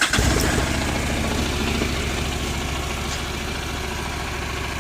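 Honda CTX700N's parallel-twin engine idling steadily on its stock exhaust, just after starting up; a little louder in the first second or two, then settling to an even idle.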